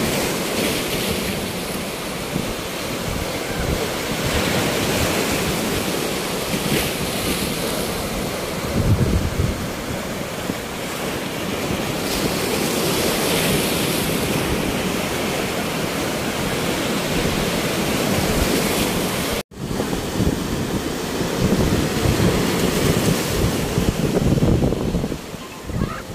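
Sea surf breaking and washing on the beach in a steady wash of noise, with wind buffeting the phone's microphone. The sound cuts out for an instant about three quarters of the way through.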